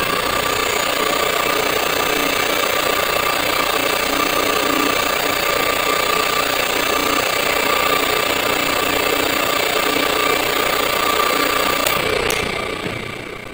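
Car alternator converted into a 36 V brushless (BLDC) motor, running at a steady speed off a BLDC controller: a steady whine of several tones over a rough mechanical hum. About twelve seconds in it winds down and fades out.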